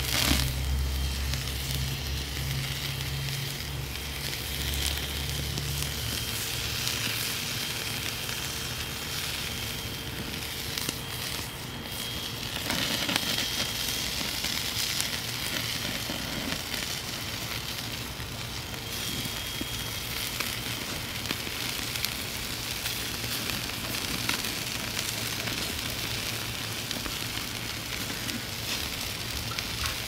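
A T-bone steak sizzling on the grate of a charcoal kettle grill, with crackling from the hot briquettes underneath. A low rumble runs under it for the first several seconds.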